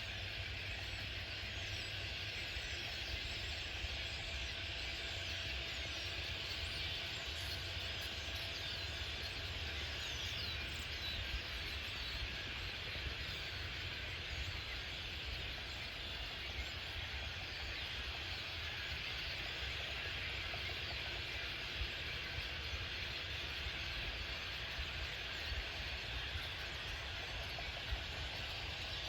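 Faint, short bird chirps now and then over a steady hiss and a low rumble.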